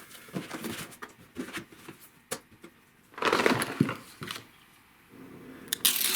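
Handling noise: scattered clicks and rustles, with two louder rustling scrapes about three seconds in and near the end, and a faint steady low hum coming in about five seconds in.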